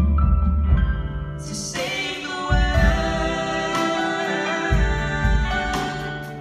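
A boy and a girl singing a Christmas song in two-part harmony, backed by a live band with drums, guitars and keyboard.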